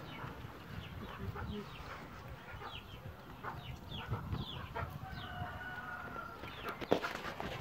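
Chickens clucking, with a longer held call about five seconds in and a sharp knock near the end.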